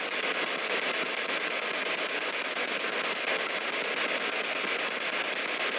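Spirit box scanning through radio frequencies, giving a steady hiss of radio static with no clear voice coming through.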